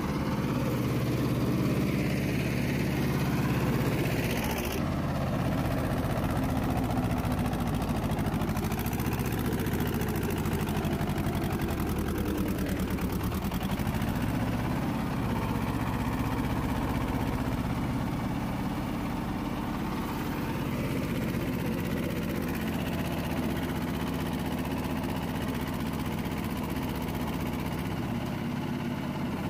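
Mahindra 255 DI tractor's two-cylinder diesel engine running steadily under load as the tractor works through deep loose sand. The engine speed rises and falls a few times.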